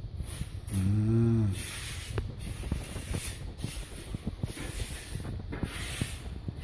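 A short wordless voice sound about a second in, then faint, irregular light clicks and rustling over a steady hiss.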